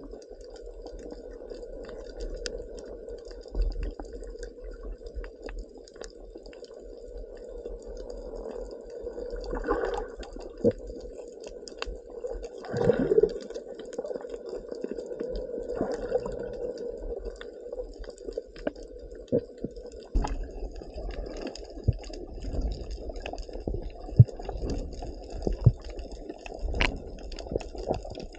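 Muffled underwater sound of moving water picked up by an action camera below the surface: a steady dull wash with many scattered small clicks and a few louder swells near the middle.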